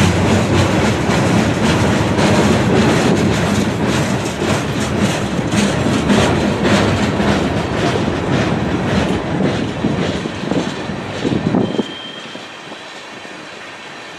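Freight train cars, boxcars and then covered hoppers, rolling past close by, the wheels clacking rapidly and continuously over the rail. About twelve seconds in, the sound drops suddenly to a much quieter, steady rumble.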